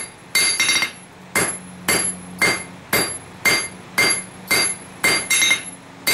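Hammer blows on hot stainless steel over an anvil, about two a second with some quick double strikes, each one ringing briefly as the blade is drawn out.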